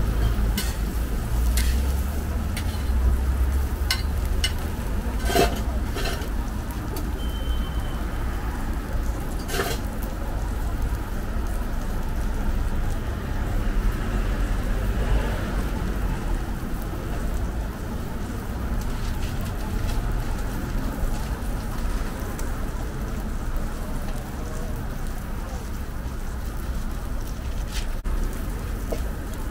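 Ham slices, a meat patty and egg sizzling on a flat-top griddle, with a steady low rumble underneath. A few sharp clicks and taps of a metal spatula come in the first ten seconds.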